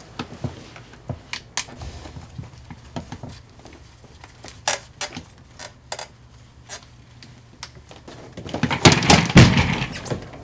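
Scattered creaks and clicks from a swivel office chair as a person standing on its seat shifts his feet, then a louder burst of knocks and rattling near the end.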